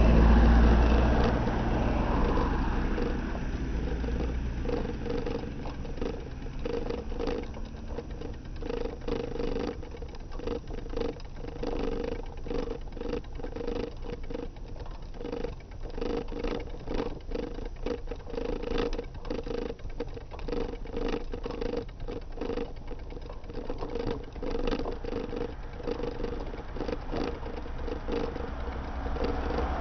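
Bicycle rolling along a road, picked up on the handlebars, with a continuous rhythmic clicking rattle; a motor vehicle's low rumble is heard in the first couple of seconds and another vehicle comes in at the end.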